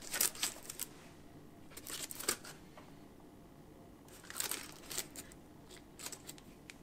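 Clear plastic protective bag crinkling and rustling on and off as the digital dash unit wrapped in it is lifted out of its foam packing and turned over in the hands.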